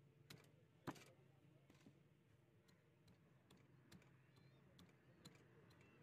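Faint, scattered sharp clicks and light knocks, the loudest about a second in: a curved chopper knife and hands working a fish fillet on a wooden log chopping block.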